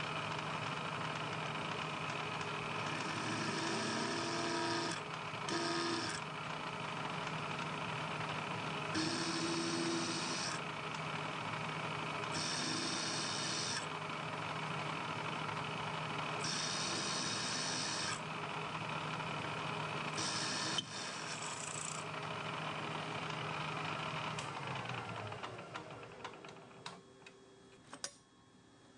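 Milling machine spindle running steadily while a twist drill bores through a steel plate in about six separate pecks, each a burst of high scraping cutting noise. Near the end the spindle motor is switched off and winds down, its pitch falling away.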